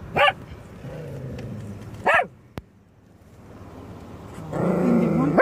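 Dog barking out of an open car window: two short, sharp barks about two seconds apart, then a longer, louder stretch of sound and another bark near the end.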